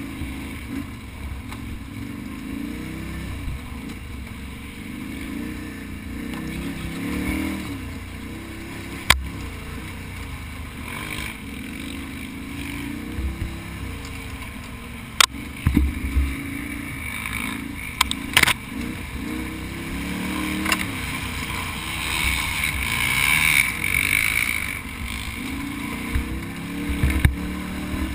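Can-Am Outlander ATV engine revving up and down as it is ridden hard over rough ground, with a few sharp knocks.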